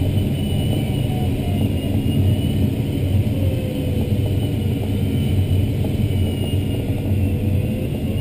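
Steady rush of airflow over an ASK-21 glider in flight, heard inside the cockpit as a low even rumble, with a faint thin high tone running above it.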